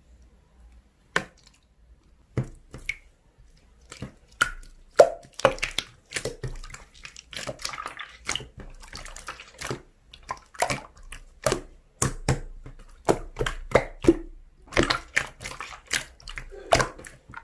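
Slime being squeezed and worked by hand, making irregular sharp wet pops and clicks a few times a second, with soft squishing in between.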